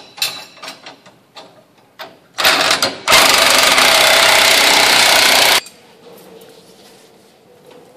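Cordless impact wrench running a suspension bolt tight, hammering steadily for about two and a half seconds and then stopping abruptly. A brief burst from the tool comes just before it, and a few light clicks come earlier.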